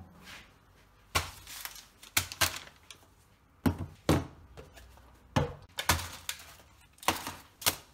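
Plastic food tubs and packets being put down on a hard kitchen worktop: about ten knocks and thunks at uneven intervals.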